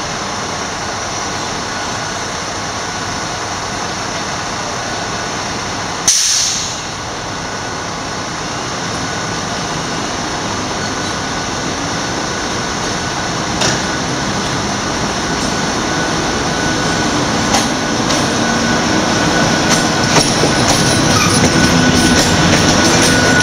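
MÁV class V43 (431) electric locomotive pulling out with its train, drawing steadily nearer and louder until it passes close by near the end. A short, sharp hiss cuts in about six seconds in and fades within a second.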